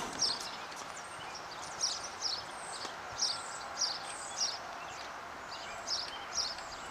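Footsteps of a tennis player on a hard court, short scuffing steps about two a second over steady outdoor background noise.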